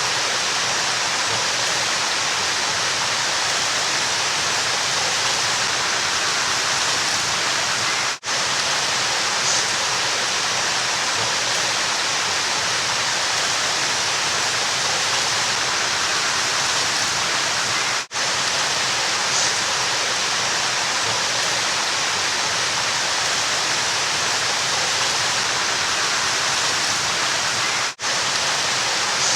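River water rushing steadily with an even hiss, without change. A very short dip in the sound comes about every ten seconds, where the recording loops.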